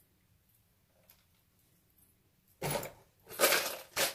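Small metal brackets rattling as they are dropped into a cut-off plastic bottle: three short jingling bursts, starting about two and a half seconds in.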